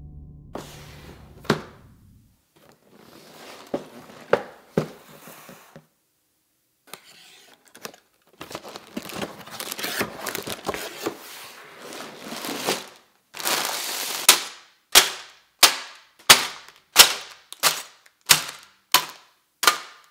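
A cardboard Lego set box is opened and its plastic bags of bricks are pulled out with rustling and a loud crinkle. Then about ten sealed bags of Lego pieces are dropped one after another onto a table, each a sharp smack, roughly two a second.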